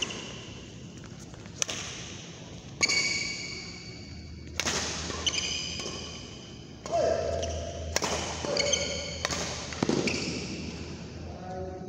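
Badminton rackets striking a shuttlecock in a fast rally, a series of sharp hits about a second apart, several with a brief ringing ping from the strings. Between hits come short squeaks of court shoes on the mat, and the hits echo through the hall.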